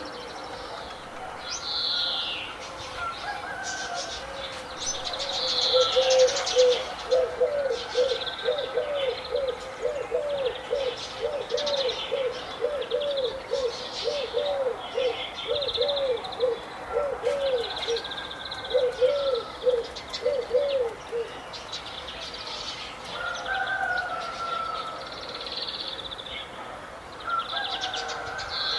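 Several birds calling: high chirps and twitters throughout, and a lower call repeated in a quick series of about two notes a second from about six seconds in to about twenty-one seconds.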